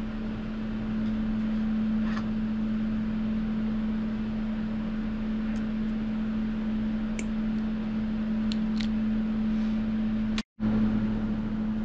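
A steady machine hum with one constant low tone, with a few faint, short clicks as a thin plastic tube is trimmed with cutters. The sound drops out for a moment near the end.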